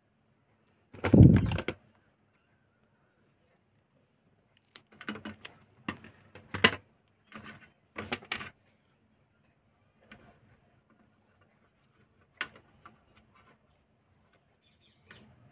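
Hands handling double-sided tape and small parts inside an opened set-top box: scattered rustles and clicks, with one louder thump about a second in.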